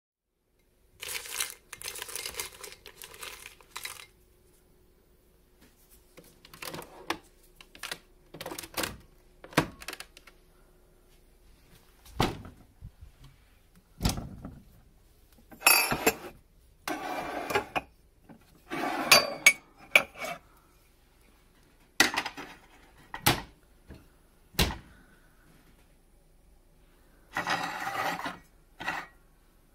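A string of separate clicks, clacks and knocks as an espresso machine's lever and a ceramic mug are handled on a kitchen counter, with short clattery bursts near the start and near the end.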